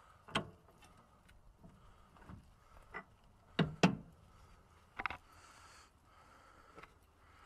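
A few sharp knocks and clunks from handling around the front suspension, the loudest a quick pair about three and a half seconds in, with a brief faint rustle after them.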